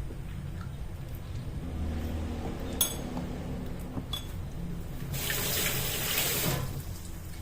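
Kitchen tap running for about a second and a half near the end, after two sharp clicks.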